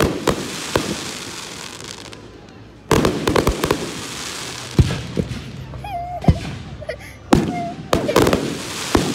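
Aerial firework shells bursting in the sky. There are heavy booms right at the start, about three seconds in and about seven seconds in, with smaller bangs between them and a crackling hiss after each burst.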